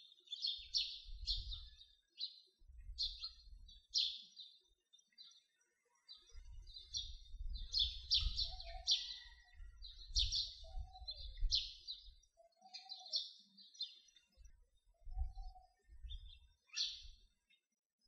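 Small birds chirping: many quick, high chirps in short clusters, with a faint low rumble coming and going underneath.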